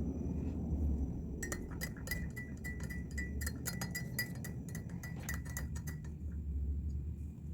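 A spoon stirring in a glass, clinking rapidly against the sides with a light ringing tone for about five seconds, then stopping. A low steady hum runs underneath.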